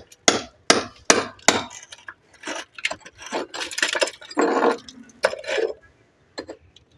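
Hammer blows chipping away cracked concrete around a pillar: sharp metallic strikes, about four in the first second and a half, then more spaced out. The concrete is being broken out because the steel reinforcing bars inside have rusted and split it.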